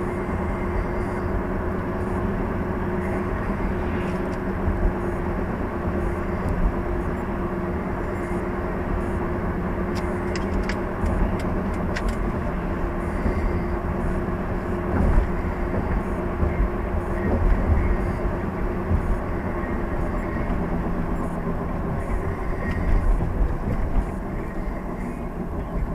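Road and engine noise inside a moving car's cabin: a steady low rumble with a constant hum, and a few faint ticks around ten to twelve seconds in.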